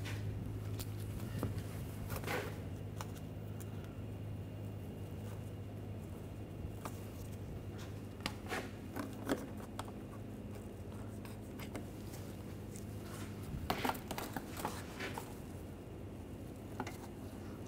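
Scattered light clicks and rubbing of gloved hands starting bolts into the car's plastic underbody panel, in small clusters, over a steady low hum.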